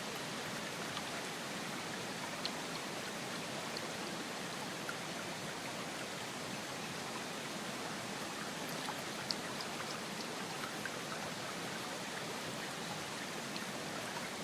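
Steady rushing water, a stream or rain, with a few faint sharp ticks scattered through it.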